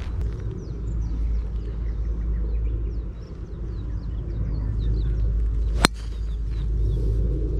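A driver striking a golf ball off the tee: one sharp crack about six seconds in. Birds chirp through the first part, over a low steady rumble.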